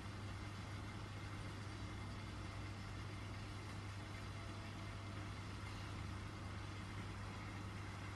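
A steady low hum over an even background hiss, unchanging throughout, with no distinct events.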